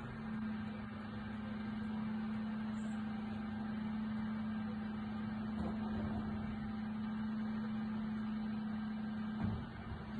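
Refuse collection truck running with a steady, one-pitched hum that stops with a small knock near the end.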